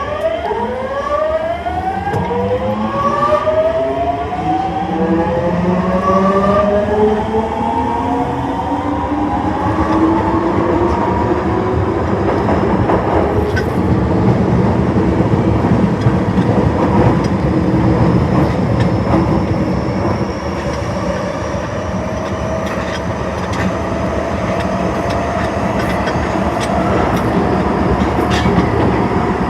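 Osaka Metro Tanimachi Line 22 series subway car 22618 accelerating. A stack of motor tones rises in pitch over the first ten seconds or so. The train then runs on with a steady high-pitched whine over the loud rumble of wheels on rail.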